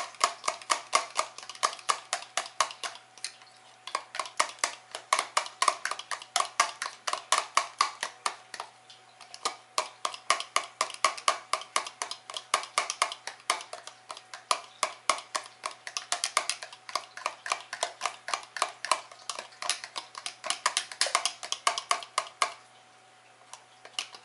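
A fork beating egg whites by hand in a plastic cup, rapid rhythmic clicking of about five strokes a second against the cup's side, with a few short pauses. The whites are being whipped toward a foam.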